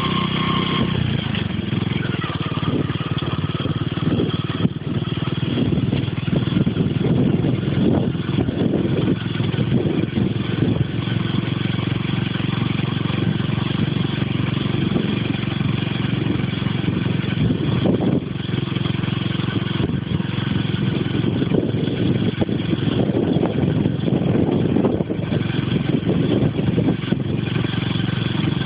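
Motor vehicle running along a road: a steady engine drone with irregular gusts of wind buffeting the microphone.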